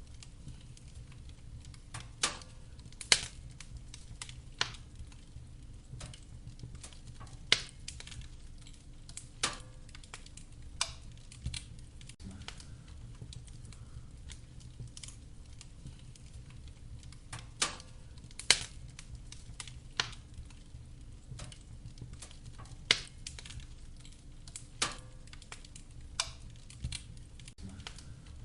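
Wood fire crackling in a fireplace: irregular sharp pops and snaps, about a dozen louder ones among many small ones, over a steady low background.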